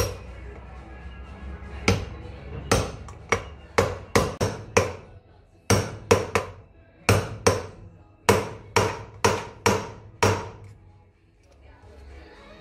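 Hammer striking a bearing-driver rod, driving a new wheel bearing cold into a Suzuki DR650's rear hub. It lands about eighteen sharp metallic blows in uneven bursts of two to four, each with a brief ring, then stops near the end.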